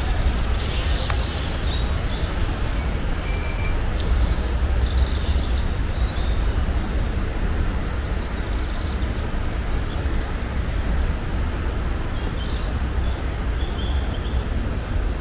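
Steady rushing roar of a waterfall, heaviest in the low end. Over it, a small bird chirps repeatedly, with a brief high trill about a second in.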